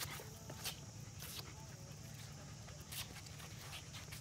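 A handful of footsteps scuffing on concrete, short sharp scrapes at uneven intervals, over a faint steady low hum.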